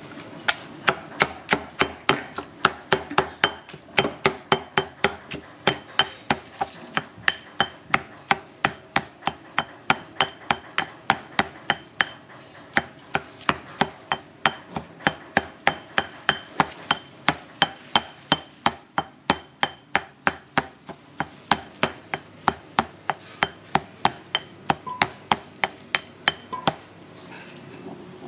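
Fast rhythmic knocking from food preparation, about three sharp strikes a second, each with a short ring. It pauses briefly about 12 and 21 seconds in and stops near the end.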